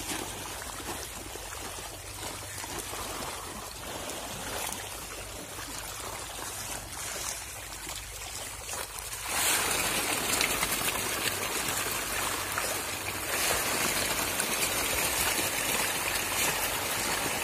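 Pond water splashing and churning as a crowd of tilapia thrash at the surface, feeding on pellets; the splashing turns suddenly louder about halfway through.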